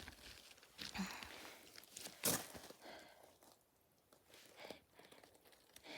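Footsteps on loose rock rubble: faint, irregular crunches and scuffs, with one sharper crunch a little over two seconds in.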